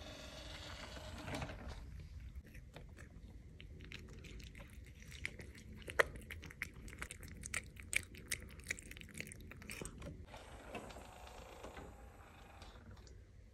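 A cat chewing dry kibble: a run of quick, sharp crunches for several seconds in the middle, between softer stretches.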